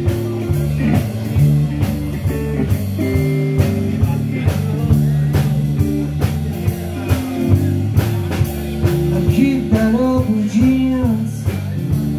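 Live blues band playing an instrumental passage: electric bass and electric guitar over a steady drum-kit beat, with a bending lead line near the end.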